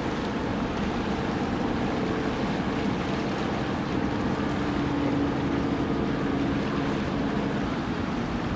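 Steady hum of motorboat engines out on the water, mixed with wind on the microphone and the wash of the sea.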